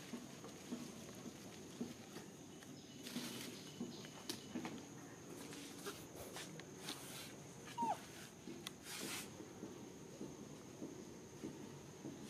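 Faint outdoor ambience: a steady high insect drone, scattered rustles and clicks, and one short falling squeak about eight seconds in.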